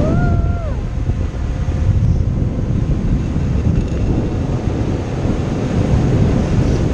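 Steady wind buffeting an action camera's microphone while parasailing, a loud low rumble throughout. In the first second a person's voice gives a brief rising-and-falling call.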